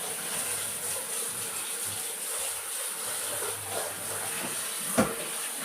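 Galangal sap being poured into a drinking glass, a steady run of liquid, with a single sharp knock about five seconds in.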